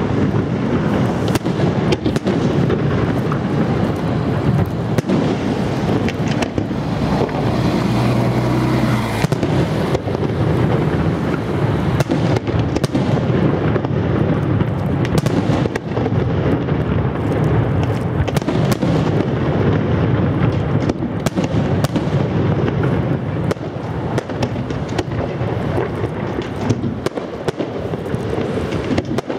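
Fireworks display: a dense, continuous barrage of bangs, booms and crackling bursts, with no let-up.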